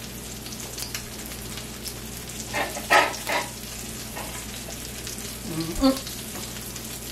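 Chicken patties frying in lard in a pan: a steady sizzle with fine crackling. A few short, louder sounds stand out about three seconds in and again near six seconds.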